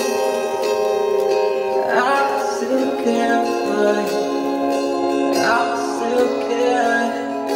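Background music with long held notes and a few sliding notes.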